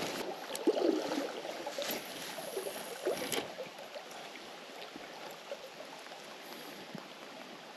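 Small river running steadily, with a few knocks and rustles over the first three seconds or so.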